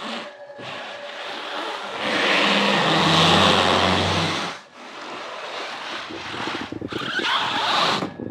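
An electric car's tyres squealing and skidding on the painted concrete floor of an underground parking garage. The squeals come in several takes with short breaks, and the loudest runs from about two to four and a half seconds in.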